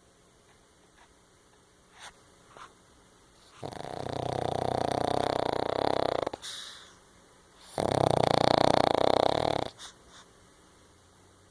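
Pekingese dog snoring: two long, loud snores of about two seconds each, starting a few seconds in, with a softer breath between them.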